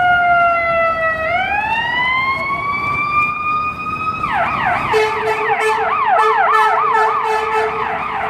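Emergency vehicle siren in wail mode, falling slowly in pitch and then rising and holding high, switching about four seconds in to a fast yelp of a few sweeps a second. A steady lower tone joins the yelp about a second later.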